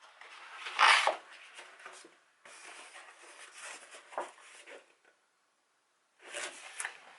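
Paper rustling and rubbing as the glossy pages of an album photo book are handled and turned, with the loudest swish of a page about a second in and softer rustles after it.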